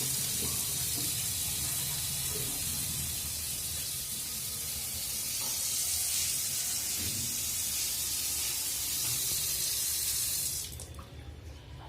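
Water running steadily from a wall-mounted kitchen mixer tap into a sink, shut off abruptly near the end.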